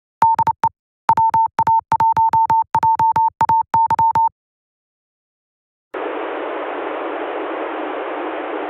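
Morse code beeps: one steady tone keyed in short and long pulses for about four seconds. After a second and a half of silence comes a steady rush of radio receiver static hiss, the open channel before the space station transmits.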